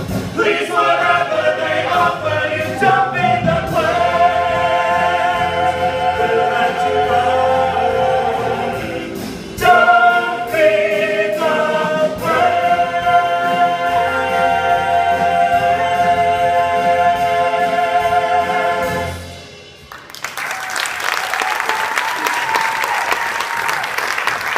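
A stage-musical cast singing the finale in chorus with band accompaniment, the song ending about nineteen seconds in. An audience then breaks into applause.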